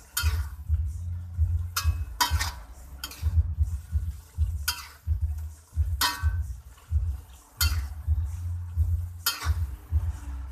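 A spatula scraping and knocking against a cooking pan as a chayote stir-fry is stirred, a sharp stroke every second or two, over a steady low rumble.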